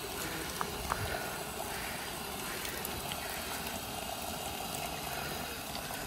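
Steady open-air hiss on a dirt hillside trail, with a few faint clicks about a second in.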